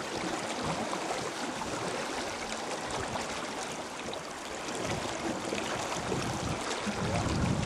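River current flowing and rippling, a steady wash of water noise. A low rumble builds near the end.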